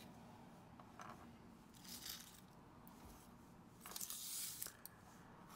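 Dry garlic skins crackling faintly as cloves are peeled by hand, in a few short rustles with a longer one about four seconds in.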